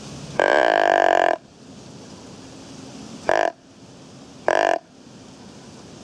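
Whitetail deer grunts: one long grunt of about a second, then two short grunts about a second apart, loud over a quiet field.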